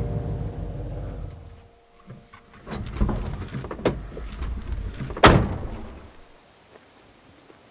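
Old pickup truck's engine idling, then switched off about a second and a half in. A few seconds of clunks and rattles follow as the truck's door is opened, ending with one loud door slam about five seconds in.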